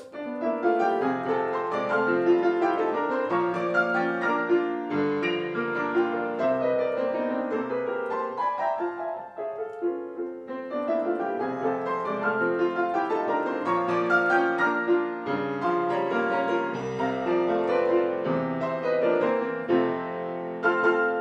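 Solo grand piano playing a flowing passage of many overlapping notes, with a short lull about nine seconds in.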